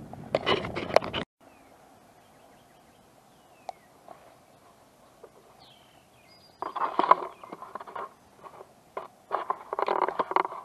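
Crunching footsteps on a forest trail, irregular, with a quiet pause in the middle where a few faint high bird chirps are heard.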